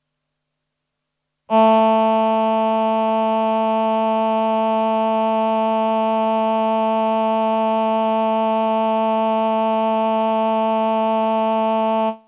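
Roland VP-330 Vocoder Plus synthesizer playing its male 'human voice' choir patch: a single held note that comes in about one and a half seconds in, sustains evenly for about ten seconds, and stops abruptly near the end.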